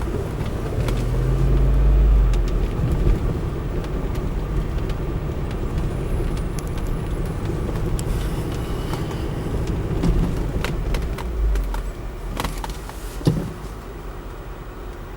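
Mercedes-Benz ML SUV engine running as the vehicle drives off-road, swelling about two seconds in, with scattered knocks and clatter and two sharper knocks near the end, after which the engine sound eases off.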